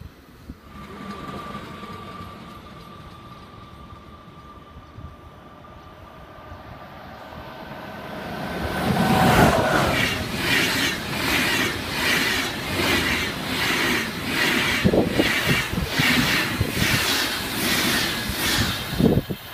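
Passenger train of Swiss SBB coaches passing through the station at speed. It starts quiet, with a faint steady whine and a rising rumble as it approaches. From about nine seconds in comes a loud rush with a rhythmic clatter of wheels, about two beats a second, as the coaches go by.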